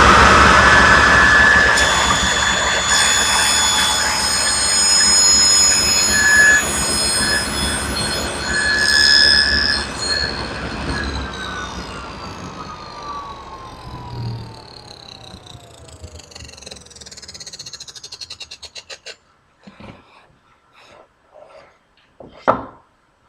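Table saw with a dado blade, switched on and running through a pass in the board with a high whine, then switched off; the motor and blade spin down with a falling whine over several seconds. A few light knocks follow near the end.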